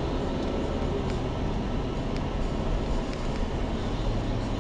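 Steady engine and road rumble of a moving car heard from inside the cabin, with a few faint scattered ticks.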